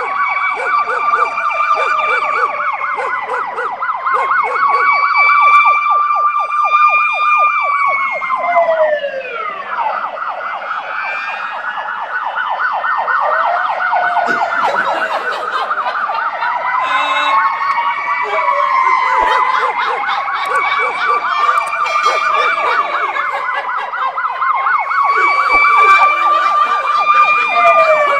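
Siren wailing, rising and falling slowly every few seconds with a fast pulsing warble, overlapping glides in places.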